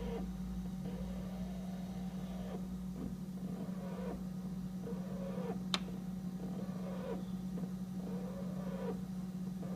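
Brastemp BRM48NR refrigerator running with a steady low hum and a warbling tone that rises and falls about once a second, plus one sharp click about halfway through. It is the odd noise the owner says the fridge has always made, which they ask about as a possible defect.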